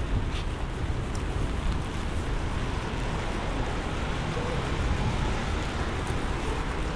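Heavy rain falling steadily, with scattered drop ticks over a continuous low rumble.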